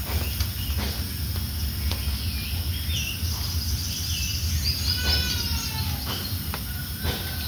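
Forest undergrowth ambience: a few short chirping bird notes and a pitched call about five seconds in, with insects calling. A steady low rumble and scattered clicks run underneath.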